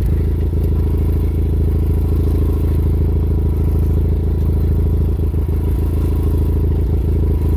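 Kubota's engine running steadily at idle, with a few light knocks partway through.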